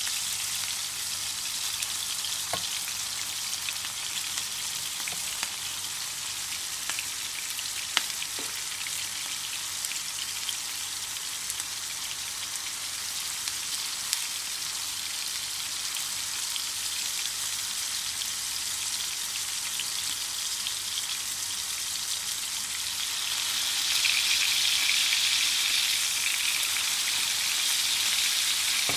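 Chapli kababs (minced-meat patties) sizzling steadily as they shallow-fry in oil in a black iron pan, with a few sharp clicks; the sizzle gets louder near the end.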